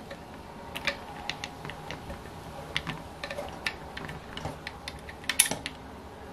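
Scattered light clicks and ticks of a hex driver and small screws being handled on the metal of an O.S. FF-240 Pegasus model engine during disassembly, with a sharper cluster of clicks about five seconds in.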